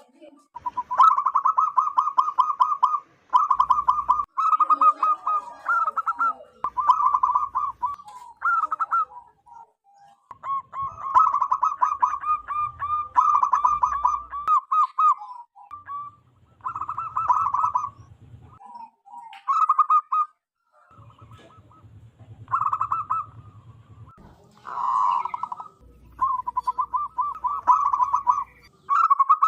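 Zebra dove (perkutut) calling: a string of rapid, staccato rattling coo phrases, each lasting one to three seconds, separated by short pauses.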